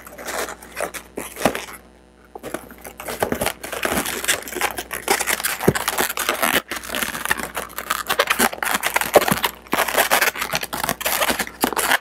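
Latex 260 modelling balloons squeaking, rubbing and crinkling in the hands as they are twisted and knotted, with many small clicks and a short lull about two seconds in.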